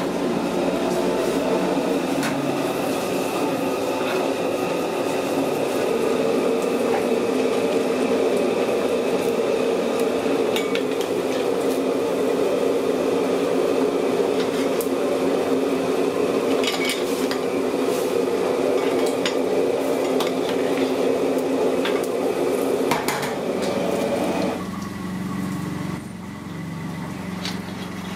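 A wok of water at a hard rolling boil over a burner: a steady rushing bubble, with now and then a sharp clink of a metal ladle against the wok. About 25 seconds in, the rush drops to a quieter, lower sound.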